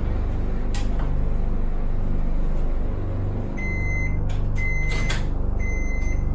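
Microwave oven beeping three times to signal the end of its cooking cycle, over a steady low hum. A click comes about a second in and another among the beeps.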